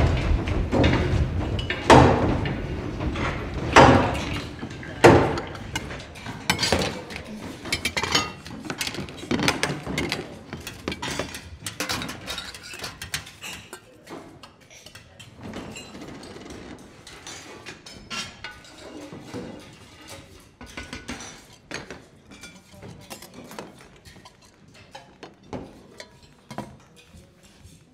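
Kitchen clatter: irregular clinks and knocks of pots, dishes and utensils, with a few loud strikes in the first five seconds, then fainter and sparser.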